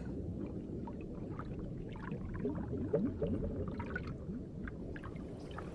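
Muffled underwater ambience: a low rumble with soft gurgles and scattered faint clicks.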